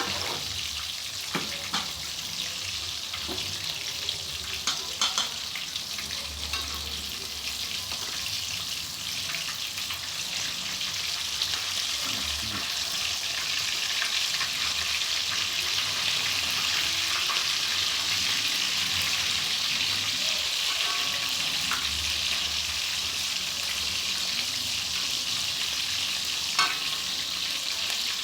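Breaded chicken pieces frying in hot oil: a steady sizzling hiss that grows louder about halfway through, with a few light taps of a utensil.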